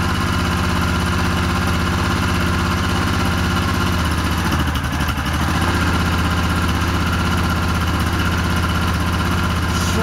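Yamaha Wolverine 450 ATV's single-cylinder four-stroke engine idling steadily, freshly started after refusing to start while stored, the cause a carburetor float needle stuck in its seat with gummed fuel. The running dips briefly about halfway through, then settles again.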